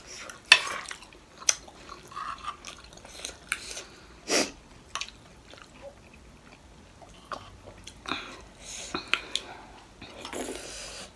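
Eating sounds of spoons and mouths on momo dumplings: metal spoons clicking and scraping on plates, with wet chewing and smacking. Sharp clicks come scattered, the loudest about half a second in.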